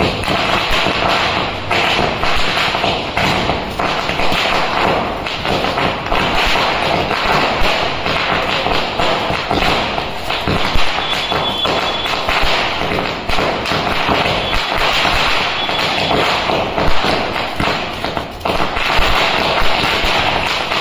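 Diwali firecrackers crackling and popping without a break, with a few louder bangs.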